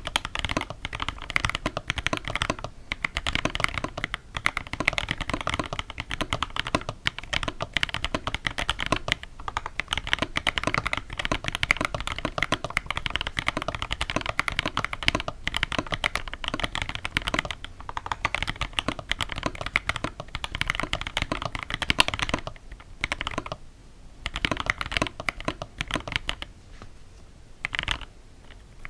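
Mechanical keyboard typed on close to the microphone: a fast, steady run of key clacks, with a few short pauses near the end. The switches have their springs and the back of the contact leaf heavily lubed with grease and PTFE powder, plus switch films, to keep them from pinging or ringing.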